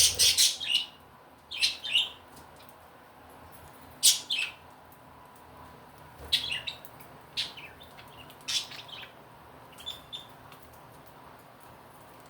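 Budgerigars chirping in short high-pitched bursts every second or two, the calls thinning out and stopping about ten seconds in.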